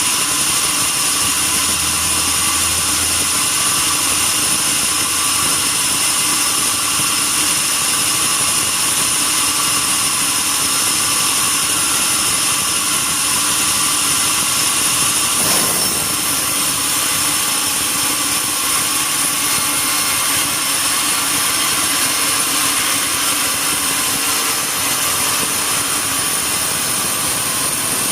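Sawmill saw running steadily with a high whine, with a brief swell about halfway through.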